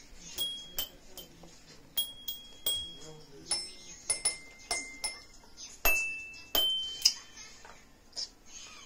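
Children's toy keyboard being played by pressing its keys one at a time: a string of plastic key clicks, each followed by a short high beeping note, at several different pitches, a few notes held for about half a second.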